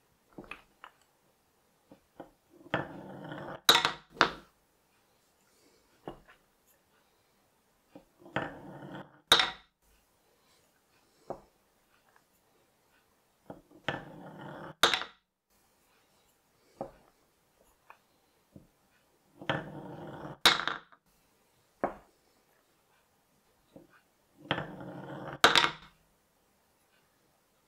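Small balls rolling down a wooden chute, each run lasting about a second before ending in a sharp clack or two as the ball drops into a wooden bowl among other balls. This happens five times, about every five and a half seconds, with faint clicks in between.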